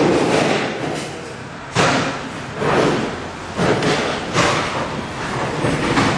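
Heavy thuds and bangs, about six of them, each sudden and fading away over about half a second.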